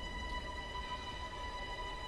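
Background music: a sustained steady drone, a held high tone over a low rumble, unchanging throughout.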